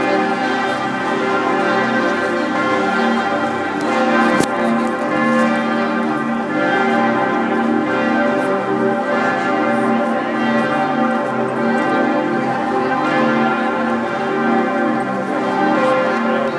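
Serbian Orthodox church bells ringing continuously, many bell tones overlapping in a steady peal.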